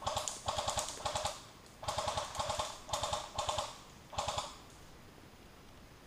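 Airsoft electric rifle, a Tokyo Marui SCAR-H, firing on full auto in about eight short bursts of rapid mechanical clicking over the first four and a half seconds, then stopping.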